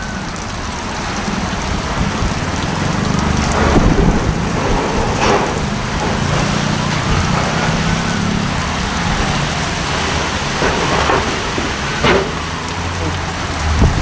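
Heavy rain and strong wind of a windstorm, with a loud low rumble underneath and a few sharp knocks.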